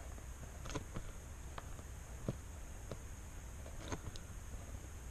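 Pen drawing short strokes on paper: faint scattered taps and scratches as the tip touches down and moves, irregularly spaced, over a steady low background hum.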